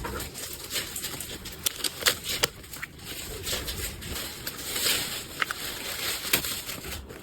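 Packaging being handled: a continuous rustle and crinkle of wrapping, with many sharp clicks and taps scattered through it and a louder stretch of rustling about five seconds in.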